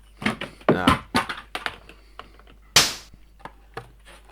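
Redcat Ascent18 1/18 scale RC crawler tumbling back down a steep incline: a run of light plastic clicks and knocks, then one hard thump about three seconds in as it hits the ground, hard enough to pop the body down onto the bumper.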